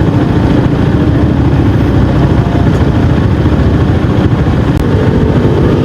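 Yamaha XMAX 250 scooter being ridden: steady engine and road noise under a heavy, fluctuating wind rumble on the microphone.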